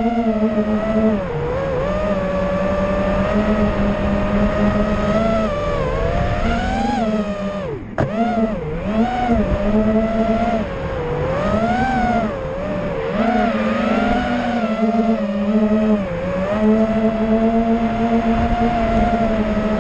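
FPV racing quadcopter's Brother Hobby 2306 2450kv brushless motors and propellers whining as it flies, recorded on board, the pitch rising and falling again and again with the throttle. About eight seconds in there is a sharp click as the whine dips briefly.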